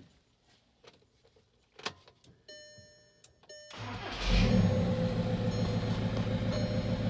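A few light clicks and a short electronic beeping, then the 1.9 L BRM turbodiesel of a 2006 Volkswagen Jetta TDI cranks and starts about four seconds in. It flares briefly and settles into a steady idle, running on a newly fitted timing belt.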